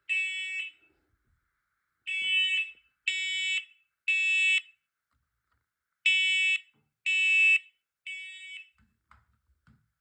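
Smoke alarm sounding its high-pitched alarm in the temporal-three pattern: three half-second beeps, a pause of about a second and a half, repeating. It has been set off by test smoke. The last beep of the second group is fainter, and a few faint knocks follow it.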